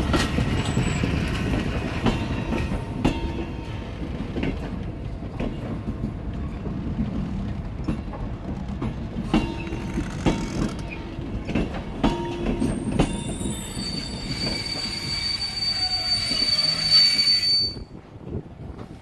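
Passenger coaches rolling slowly over the rails: a steady rumble with irregular wheel clicks over rail joints. About two-thirds of the way in a high, steady wheel squeal sets in, then cuts off suddenly near the end.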